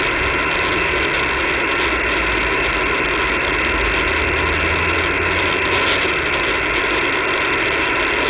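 Steady hiss and static from an HF shortwave receiver tuned to the 20-metre amateur band, heard through its narrow voice passband, with a faint steady tone in the noise: an open frequency with no station answering yet.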